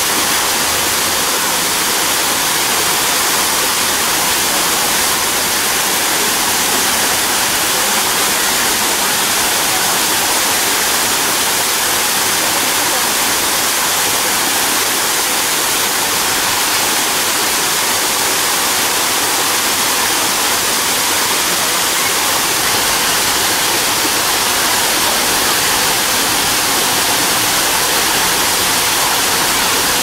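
Waterfall pouring steadily down a rock face into a pool: an even, hissing rush of water, more bright than deep.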